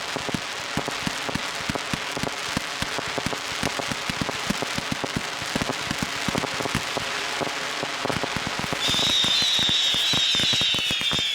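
Fireworks display: a dense, rapid crackle of many small bursts. About nine seconds in it gets louder as several high whistles join in, each sliding slowly down in pitch.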